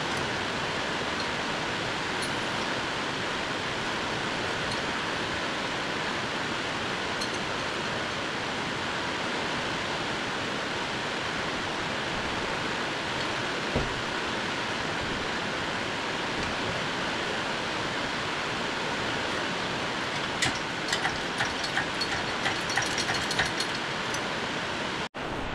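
A steady, even hiss throughout, with one knock about fourteen seconds in and a run of light metallic clicks and rattles near the end, from a shop engine hoist and its lifting chain as an engine is lowered into a car's engine bay.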